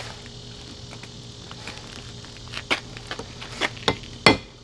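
Hand hammer striking glowing steel held on an anvil in forge-welding blows: a few light taps from about halfway in, then harder blows, the loudest near the end. A low steady hum runs underneath.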